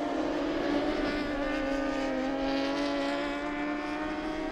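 A pack of superbike racing motorcycles at speed, their engines giving a steady, layered note of several pitches at once.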